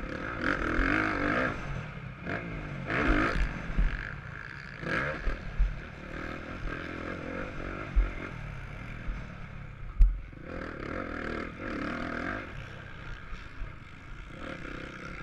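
Motocross bike engine revving up and easing off again and again, heard from a camera mounted on the bike, with two sharp knocks about eight and ten seconds in.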